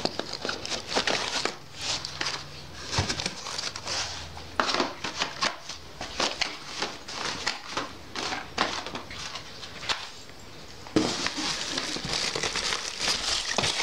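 Cardboard firecracker boxes and plastic-wrapped cracker packets being rummaged through and shifted in a cardboard carton: crinkling and rustling with many small taps and knocks. There is a brief lull about ten seconds in before the rustling picks up again.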